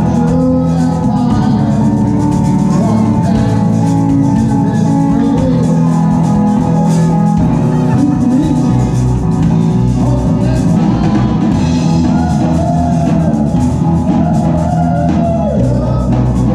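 Live rock band playing loudly: electric guitar and drum kit, with a singer's voice over them in the second half.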